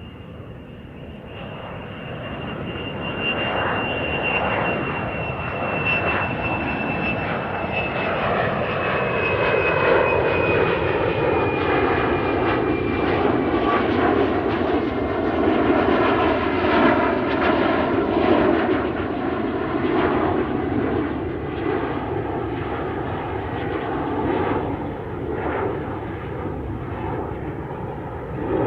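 Airplane engines building up to full power for take-off. The sound grows louder over the first several seconds and then stays loud and steady. A thin high whine slowly falls in pitch and fades after about a dozen seconds.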